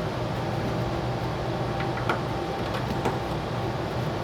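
Steady background hum of a workshop, with a few faint clicks and taps of small parts being handled.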